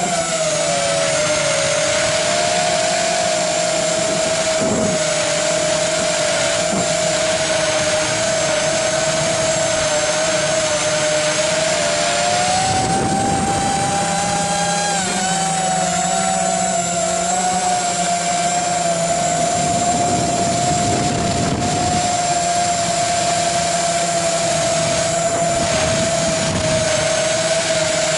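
Electric motors and propellers of an FPV quadcopter, heard from its onboard camera: a steady whine that wavers slightly in pitch with throttle, rising for a couple of seconds around the middle before settling again.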